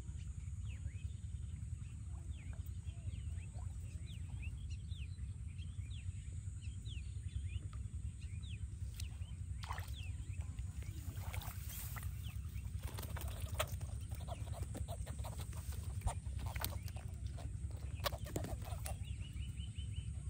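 Birds chirping and clucking over a steady low rumble. In the second half come scattered sharp knocks and splashes as a small fish is pulled from the water and handled.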